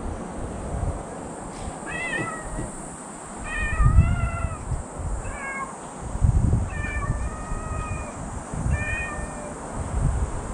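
Domestic cat meowing repeatedly, about five calls, some short and some drawn out, with low rumbling noise on the microphone in between.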